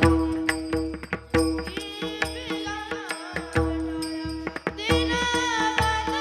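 A child's voice singing a devotional kirtan melody with gliding, ornamented notes over a steady drone, accompanied by regular drum strokes and sharp percussion strokes.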